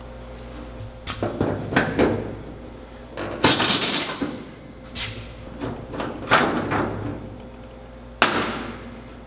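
Metal-on-metal clinks and clanks as a shower drain is unscrewed and taken apart with a screwdriver, and its pieces and tools are set down on a steel pan. The knocks are irregular and several ring on briefly; one of the sharpest comes near the end.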